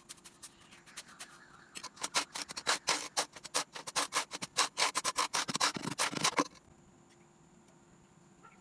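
Damp casting sand scraped and pressed smooth with a flat bar: a quick run of gritty scraping strokes that starts about two seconds in and stops about two seconds before the end.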